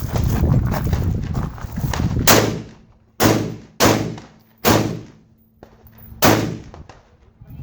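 AR-15 rifle firing five shots at an uneven pace over about four seconds, each a sharp crack with a brief echo. Before the first shot there are about two seconds of low, rough noise.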